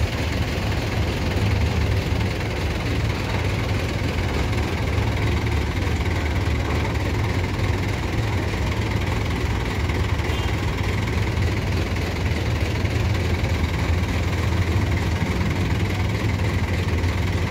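Large diesel engine idling steadily close by, a deep, even rumble that doesn't change.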